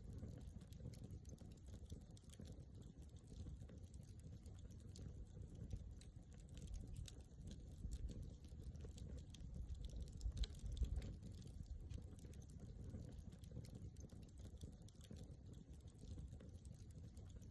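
Wood campfire crackling with many small, irregular pops over a low rumble of the flames, with one sharper pop about ten and a half seconds in.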